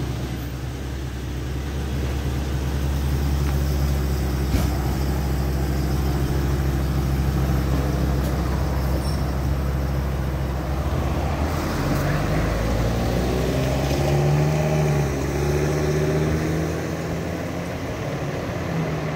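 Ambulance engine running steadily as the ambulance pulls slowly out of the station. About two-thirds of the way in, a fire engine's engine takes over, its pitch rising and falling unevenly as the truck moves off.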